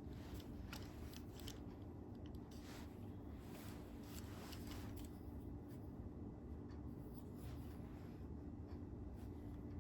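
Light, scattered clicks and rustles of hands working the parts of a new tripod, with no steady rhythm, over a steady low hum.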